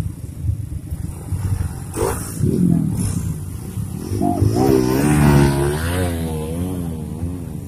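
Motorcycle engines idling, with a short rev about two seconds in. From about four seconds one engine is revved up and down over and over, so its note wavers up and down a few times a second.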